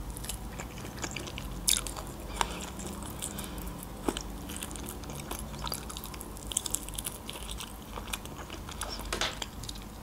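Close-miked mouth sounds of a person eating smoked chicken wings: chewing with scattered sharp clicks and smacks, a few louder ones standing out, over a faint low hum.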